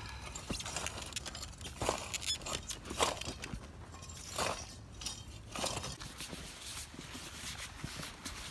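Wheel hoe with a plow attachment being pushed through loose garden soil, a soft scrape of dirt with each shove, several times about a second apart, then quieter.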